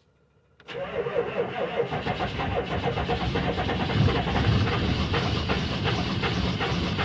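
A 1995 Chevy K3500's 6.5 L turbo diesel is cranked by the starter on weak batteries, catches about a second later and keeps running. This is its first start after a cylinder head gasket replacement and ten days of sitting.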